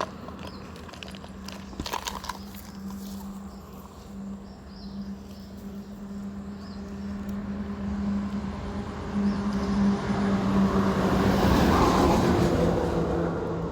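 A motor vehicle's engine hum runs steadily and grows louder, loudest about twelve seconds in as it passes close, then eases off. A few sharp clicks sound near the start.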